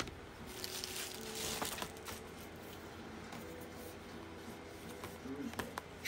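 Faint crinkling and rustling of a plastic bubble mailer being picked up and handled, with a few light clicks near the end.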